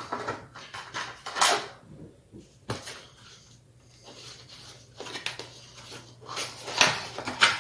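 Small cardboard box being handled and opened by hand: scrapes and rustles of the cardboard flaps with a few knocks, including a sharp click a little under three seconds in and busier handling near the end.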